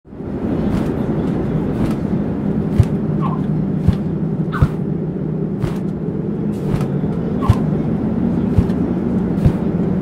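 Steady rush of wind with a short flap about once a second: the wingbeats of a large bird in flight.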